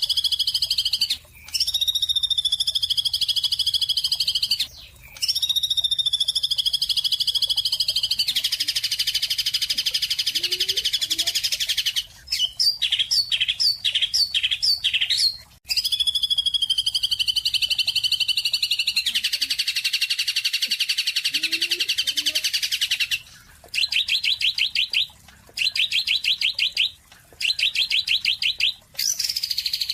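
Songbird chirping and trilling in high, loud phrases: long slightly falling notes alternate with buzzy trills and fast rattling trills, with several abrupt breaks between sections.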